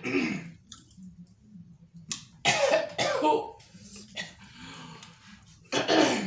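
A person coughing and clearing their throat in a few loud bursts, one at the start, a longer double burst in the middle and one near the end, with some voice in the sounds.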